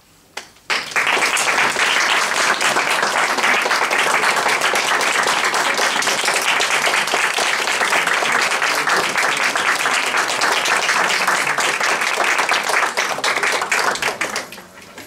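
A small group of people applauding, the clapping starting suddenly about a second in, holding steady and dying away near the end.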